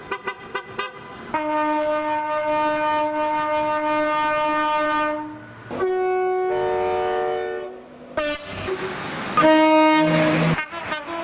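British train horn blasts: first a long steady blast of about four seconds with several tones sounding together, then shorter blasts that change pitch. Near the end they sound over the rushing noise of the passing train.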